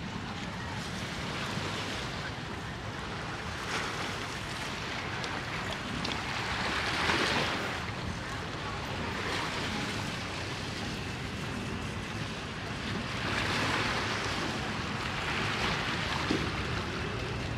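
Sea water washing against the pier, the noise swelling a couple of times, with wind on the microphone.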